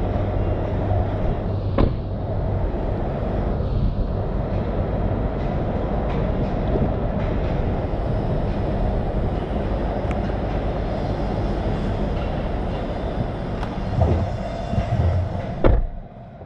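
Steady rumbling city background noise, then near the end a Smart #1 car door shuts with a single thump and the outside noise drops away to the quieter car cabin.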